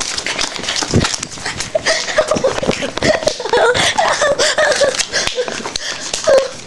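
Rubbing and knocking on the phone's microphone as it is jostled in a scuffle, with a high, wavering whine from about two seconds in.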